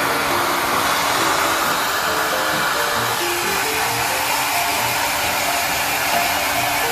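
Steady rushing air of a hair dryer running, with a soft background melody under it.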